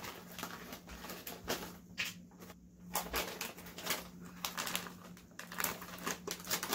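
Foil snack bag of Piattos potato crisps crinkling and rustling as it is handled, lifted and shaken, in dense irregular crackles, with a faint steady low hum underneath.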